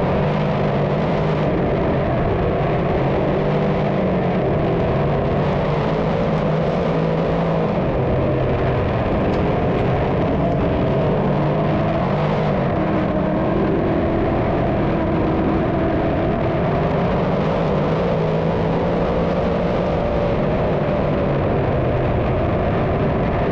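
A field of dirt modified race cars running together around the track, their engines making a steady, loud drone.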